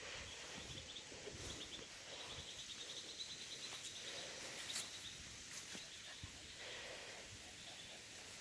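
Faint outdoor background noise with a rapid, high-pitched pulsing trill through the first few seconds and a few scattered light clicks.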